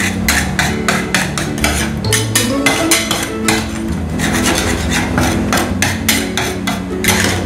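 Metal spatulas chopping and scraping on a frozen steel ice-cream-roll pan, a fast run of clacks several times a second.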